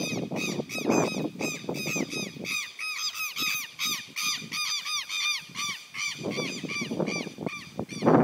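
A pair of southern lapwings (quero-quero) giving shrill, rapid, repeated alarm calls, about four a second, raised at a dog chasing them.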